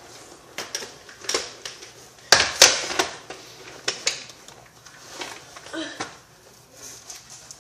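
Irregular sharp clicks and knocks of a rollerblade boot being pulled on and fastened by hand, the loudest two close together about two and a half seconds in, with softer rustling between.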